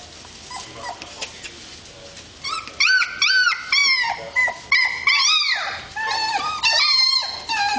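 Young German shepherd puppies whining and yelping: a quick run of short, high-pitched cries that rise and fall in pitch, starting about two and a half seconds in.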